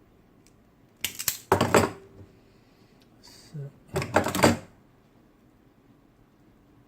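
Two short bursts of rapid mechanical clatter from a Brother electric typewriter, about a second in and again about four seconds in.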